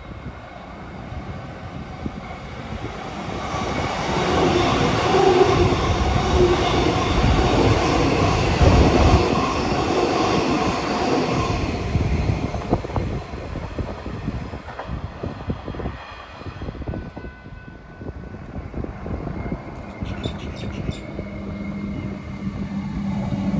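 Metro electric suburban train passing through the station: rumble and wheel noise on the rails with a whining tone build up and stay loud for several seconds, then fade. Near the end another electric train approaches with a rising steady hum.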